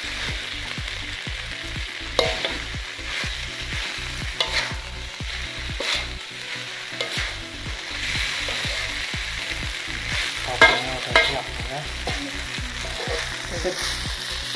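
Shredded chicken sizzling in oil in a wok while a metal spatula stirs and scrapes it, with sharp clinks of the spatula against the pan now and then, loudest about ten and a half seconds in.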